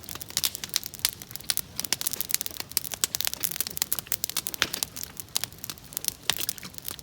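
Wood campfire crackling and popping: a dense, irregular stream of sharp snaps over a soft hiss.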